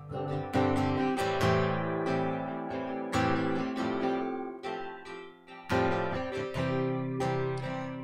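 Acoustic guitar strumming sustained chords in an instrumental break of a slow worship song, with no singing.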